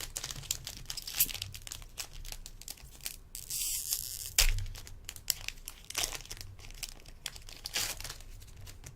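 Wrapper of a hockey trading-card pack being torn open and handled, crinkling and crackling, with a longer tearing rip about three seconds in and a sharp click just after.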